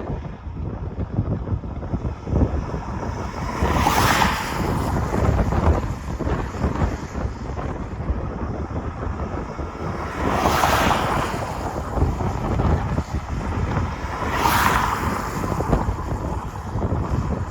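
Wind buffeting the microphone: a steady low rumbling noise, with three louder whooshes about four, ten and fourteen seconds in.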